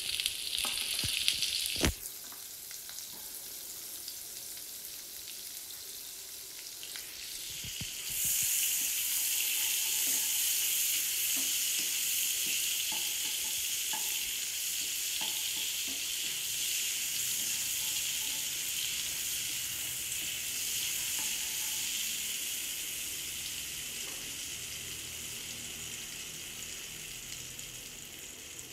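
Butter sizzling as it melts and foams in a hot non-stick pan, stirred with a wooden spatula, with a sharp tap near the start. The sizzle grows much louder about eight seconds in, then slowly eases off.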